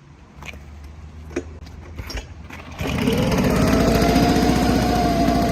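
Ochiai engine blower: a low hum and a few knocks, then about three seconds in it goes loud as the engine speeds up, a rushing blower noise with a whine that rises and holds high.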